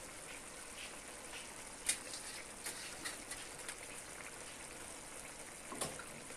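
Chicken karahi simmering in a metal karahi: a faint steady sizzle with scattered pops and spits, the sharpest about two seconds in and another near the end.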